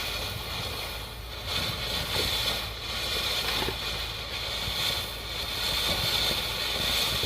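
Ground fountain firework spraying with a steady hiss that swells and eases slightly.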